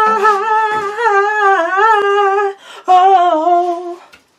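A man's voice singing long, wailing held notes with a wavering pitch, breaking off briefly just before three seconds in and then taking up a shorter second phrase.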